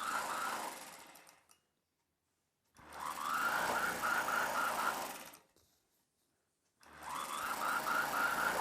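Sewing machine running in three short stretches, stitching a seam, with a quick regular beat from the needle; each stretch cuts off abruptly into dead silence before the next.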